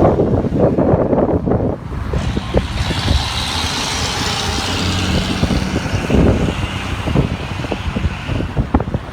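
Road traffic, a truck among it, passing close by on the highway with a long hiss of tyres. A rough low rumble of wind on the microphone fills the first couple of seconds.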